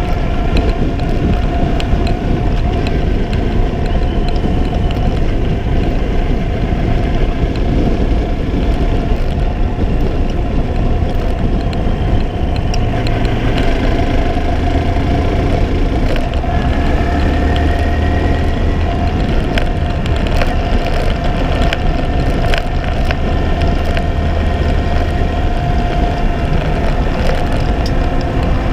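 Motorcycle engine running steadily while under way, with wind and road noise on an onboard camera.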